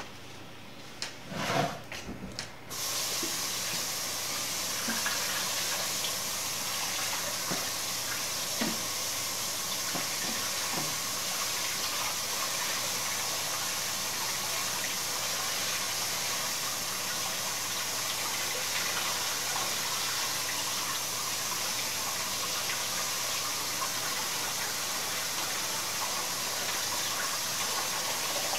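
A few knocks and clatters, then about three seconds in the kitchen tap is turned on and runs steadily, water pouring through a plastic colander of chanterelle mushrooms in the sink.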